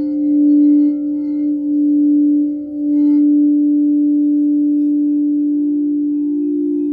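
Quartz crystal singing bowls ringing under a mallet: one bowl holds a strong, steady low tone that swells and dips a little, and a second, slightly higher bowl tone joins near the end.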